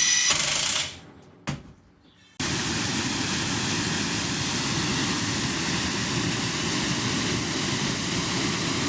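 Makita TW001G 40V high-torque impact wrench running with a high motor whine, stopping under a second in. A single knock follows. From about two and a half seconds a steady rushing noise sets in and holds.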